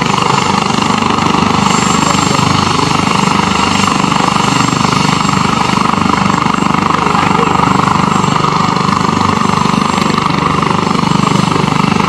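Helicopter running on the ground with its main and tail rotors turning: a loud, steady turbine and rotor noise that holds at an even level.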